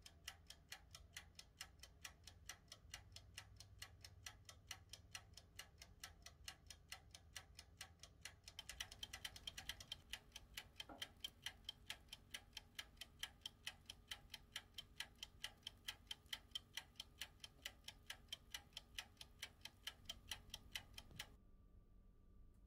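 Faint, steady ticking of a mini toaster oven's wind-up timer counting down as it bakes, about four ticks a second, growing a little louder partway through and stopping shortly before the end, over a low hum.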